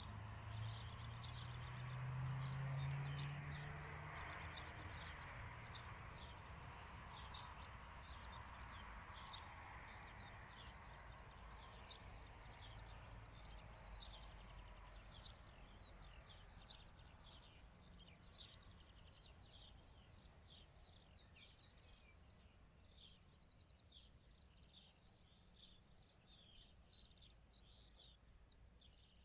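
Faint songbirds chirping over and over in the background. In the first few seconds a low hum and a soft rushing noise rise a little, then fade away.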